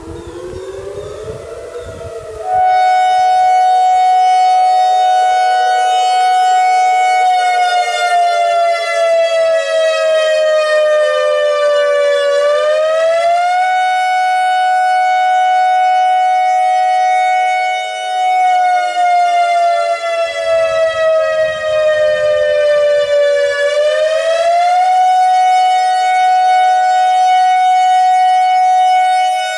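ACA Alertronic AR-1600 electronic outdoor warning siren sounding its wail test tone. The pitch climbs over the first couple of seconds and the sound jumps loud, then the tone holds high, sinks slowly and sweeps back up, twice.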